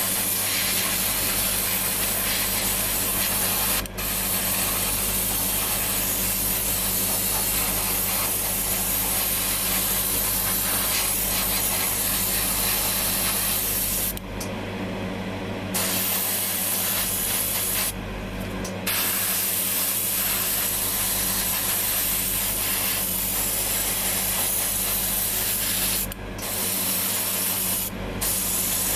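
Airbrush spraying paint, a steady hiss that stops briefly a few times and starts again, over a steady low hum.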